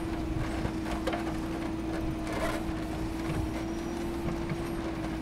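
JCB backhoe loader's diesel engine running under load as the backhoe bucket digs and lifts rocky soil, with a steady high whine over the engine rumble and a few light knocks.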